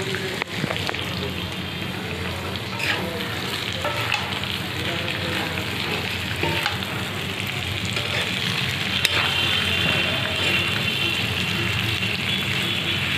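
Potatoes sizzling as they fry in a pan, stirred with a spoon that scrapes and knocks against the pan now and then.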